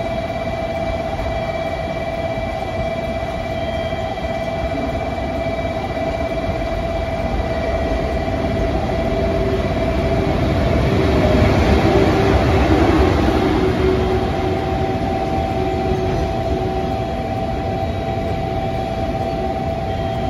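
JR Freight electric locomotive hauling a container train through the station, its running rumble swelling to loudest about halfway through and then easing as it passes.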